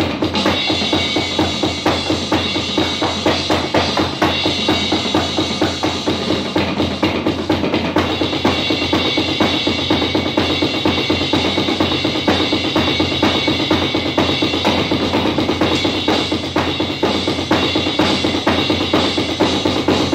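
Electronic drum kit played in a steady, busy beat of bass drum, snare and cymbals that keeps going without a break.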